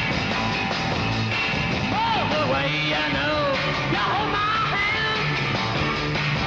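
A beat group playing rock and roll, with singing over the band.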